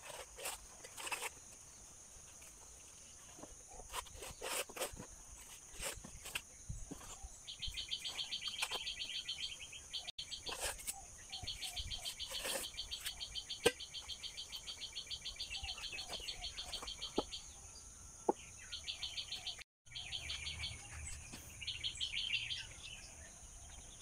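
A coconut husk is prised and torn off on a hoe blade by hand, giving scattered cracks and snaps of splitting fibre, one sharp crack louder than the rest about halfway through. Behind it runs a steady high insect hum, and a fast, evenly pulsed insect trill that starts about a third of the way in and comes and goes.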